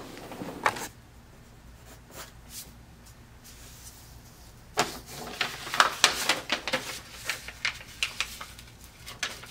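Pencil scratching on paper in quick, irregular strokes from about five seconds in, sketching a lure outline, over a low steady hum; the first few seconds hold only quiet room tone.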